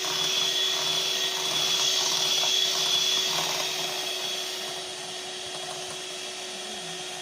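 Electric mixer running steadily as it beats brownie batter, a constant motor whine with a high tone; a little quieter from about halfway through.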